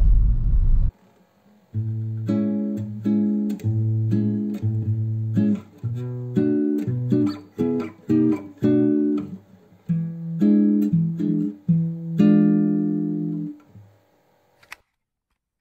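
Background music of plucked acoustic guitar playing a gentle melody over bass notes, coming in about two seconds in and fading out near the end. Before it, about a second of car cabin road rumble cuts off suddenly.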